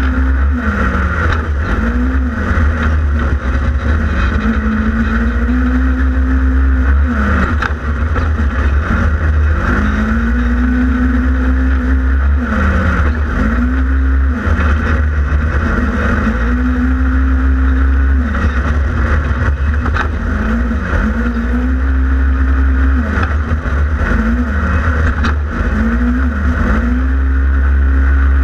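Polaris RZR XP 1000 side-by-side's twin-cylinder engine being driven hard. Again and again, about every two to three seconds, it revs up quickly, holds a steady pitch under the belt-drive transmission, then drops off as the throttle is lifted. A constant deep rumble runs beneath it.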